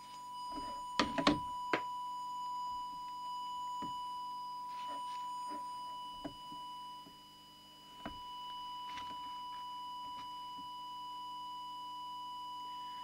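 Audio test oscillator sounding a steady, single high-pitched tone, fed into the CB radio's microphone input to measure the transmitter's deviation. A few sharp clicks and knocks of the equipment being handled come in between, the loudest about a second in. The tone drops in level briefly around seven or eight seconds in.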